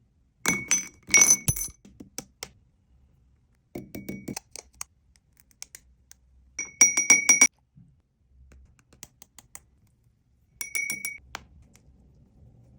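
Four short bursts of rapid clinking, each a quick run of taps with a bright, ringing tone, as of hard objects knocking against glass or a hard container.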